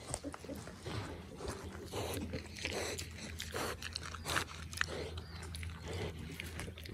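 An animal eating: repeated wet chewing and crunching sounds at an irregular pace, over a low steady hum.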